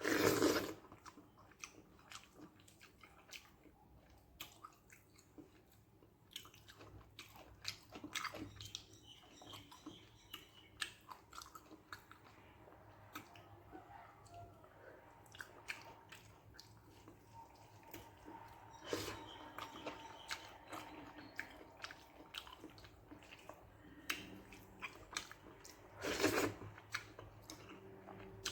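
Close-up chewing and wet mouth sounds of a person eating rice with a spicy okra and brinjal gravy: a run of quick smacks and clicks, with a few louder mouthfuls, one just after the start and one near the end.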